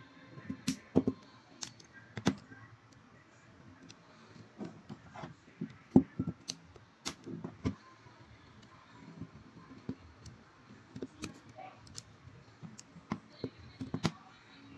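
Irregular small plastic clicks, taps and knocks of an Oppo A15s smartphone being taken apart by hand, its frame and parts knocking against the work surface.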